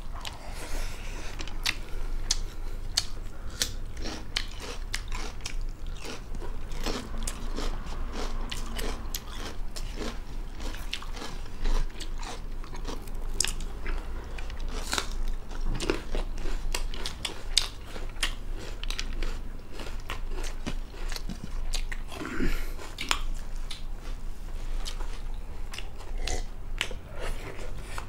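Close-miked chewing and crunching as two people eat rice and fried chicken gizzard with their hands: a steady run of irregular small biting clicks and wet mouth sounds.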